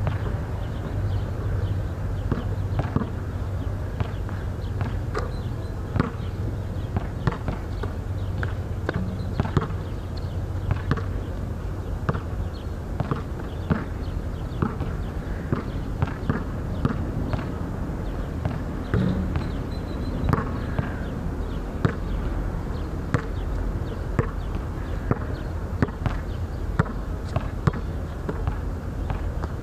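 Basketball bouncing on an outdoor hard court: many sharp thuds at irregular intervals, often a second or less apart, over a steady low hum.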